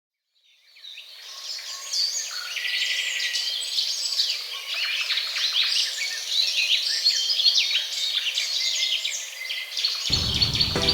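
Many birds chirping and calling at once, a dense flurry of quick high chirps that fades in over the first second or two. Music with a bass line comes in near the end.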